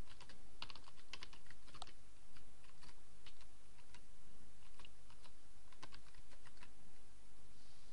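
Typing on a computer keyboard: an irregular run of keystroke clicks as a short search term is entered, over a steady low background hum.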